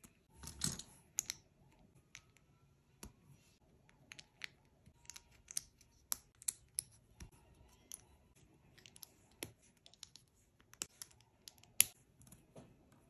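Small plastic LEGO bricks and plates clicking as they are picked from a pile and snapped together by hand: irregular sharp clicks, a brief rustle of pieces about half a second in, and the loudest snap about a second before the end.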